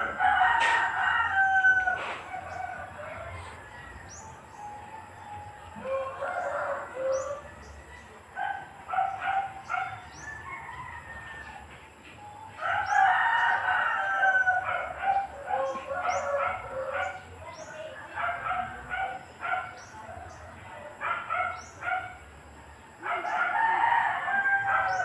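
Repeated long animal calls, each lasting a second or two and several seconds apart, with shorter calls and short high ticks between them.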